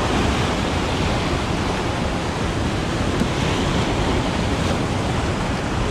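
Big ocean surf breaking and washing over a rocky shoreline: a steady, loud rush of white water.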